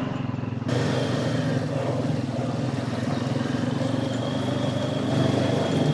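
ATV engine running steadily under way, with an even rushing noise over it that grows louder a little under a second in.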